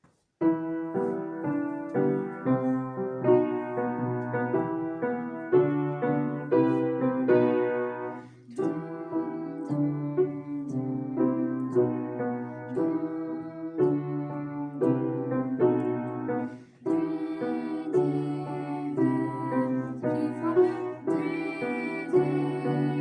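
Piano playing a slow melody over chords, starting about half a second in, with two brief breaks between phrases.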